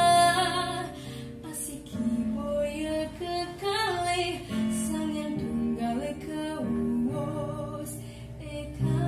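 A girl singing a song with instrumental accompaniment. A long held high note ends just after the start, and she then sings on in phrases of changing notes over steady low backing tones.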